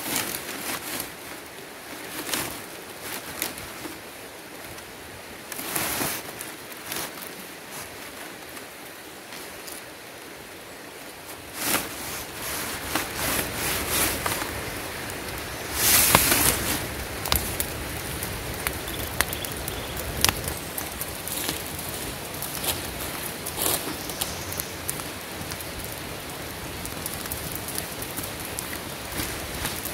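Dry leaves and twigs crackling and popping as they burn in an open pile; the crackle thickens and gets louder about twelve seconds in, with a brief louder burst a few seconds later.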